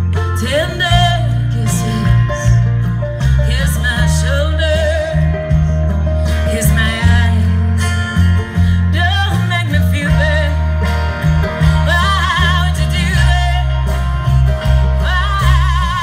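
Live acoustic folk band heard through outdoor PA speakers: a singer with a wavering vibrato over acoustic guitar and banjo, with steady low bass notes underneath.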